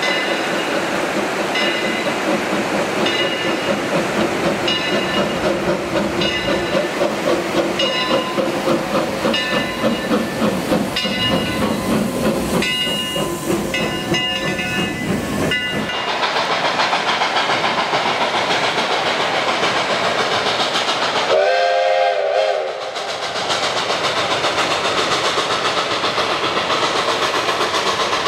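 Eureka and Palisade No. 4, an 1875 wood-burning 4-4-0 steam locomotive, passing close with its coaches: exhaust chuffing and regular clicks of the wheels over rail joints. After a sudden change to a steady rushing noise, K-28 steam locomotive No. 478 sounds one steam whistle blast of about a second, a little past two-thirds of the way through.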